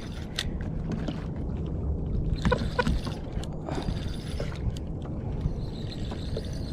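Water lapping against the hull of a small Hobie kayak under steady wind rumble, with the faint clicking of a spinning reel being cranked to bring in a hooked fish. A couple of brief squeaks come about two and a half seconds in.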